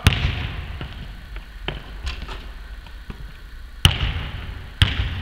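Basketball bouncing on a hardwood court: about five sharp bounces, the loudest at the start and twice near the end, each ringing out in the echo of a large empty sports hall.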